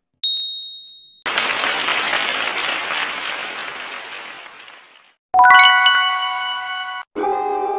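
Quiz-show sound effects as a countdown ends and the answer is revealed: one short high ding, then recorded applause for about four seconds, fading. A bright chime rings out about five seconds in, and music starts near the end.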